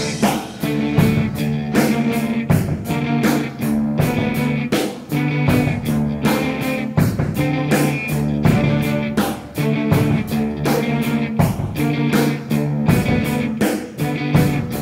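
Music with a steady drum beat over sustained chords, playing over the end credits.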